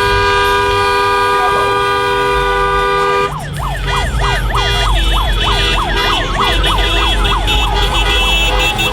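A vehicle horn held in one long steady multi-tone blast, cut off about three seconds in and followed by a fast yelping siren sweeping up and down about three times a second, over a low traffic rumble.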